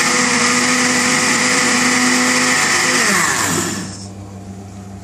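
Countertop blender running at a steady high speed, blending a liquid yogurt mix, then switched off about three and a half seconds in, its motor falling in pitch as it spins down.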